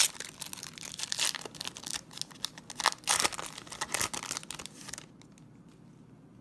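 Foil wrapper of a Panini Studio basketball card pack being torn open and crinkled by hand: a sharp rip at the start, then crackling handling of the foil that stops about five seconds in.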